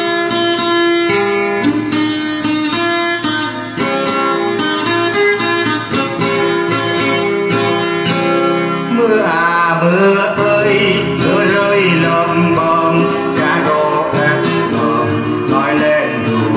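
Acoustic guitar music: plucked guitar playing a song intro, with a wavering melody line joining on top about nine seconds in.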